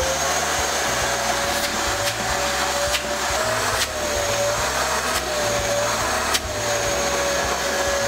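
Ridgid WD3050 3-gallon, 3.5-horsepower wet/dry shop vac running at full speed just after being switched on: a steady motor whine over a rush of air, its pitch wavering slightly, with a few faint clicks.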